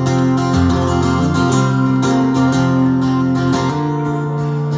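Solo acoustic guitar strummed and picked, chords ringing in an instrumental passage with no voice.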